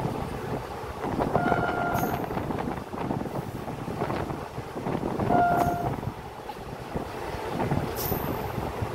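Moving train's running noise and wind on the microphone, with two short horn toots about four seconds apart.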